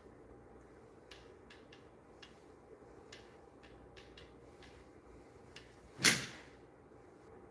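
A golf club strikes a ball once, about six seconds in: a single sharp crack with a short ring after it. Faint scattered ticks come before it.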